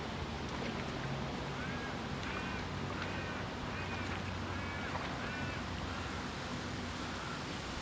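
A waterbird on the lake giving a quick series of short, arched calls for about four seconds, over a steady outdoor hiss of wind and water.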